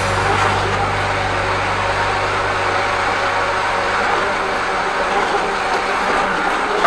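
High-pressure drain jetter running, its hose and turbo drill nozzle jetting water inside a blocked toilet drain: a steady rushing noise, with a low machine hum underneath that stops about four and a half seconds in.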